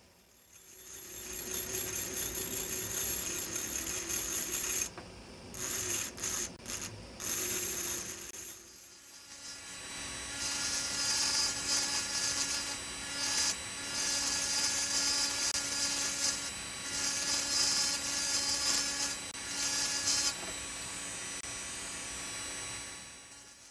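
Engraving drill with a small bur grinding into an optical crystal glass block, a steady high-speed whine with a gritty hiss on top. It breaks off several times in the first half as the bur is lifted from the glass, then grinds harder and louder for about ten seconds before easing off and stopping near the end.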